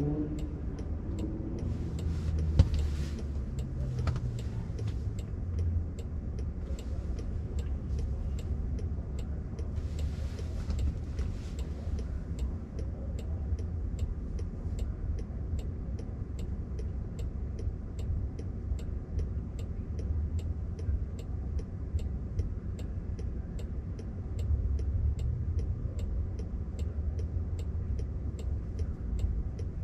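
A car's turn-signal indicator ticking at an even pace inside the cabin of a Waymo robotaxi waiting to turn left, over a steady low cabin rumble. Traffic passes with a brief rush twice, and there is a single knock about three seconds in.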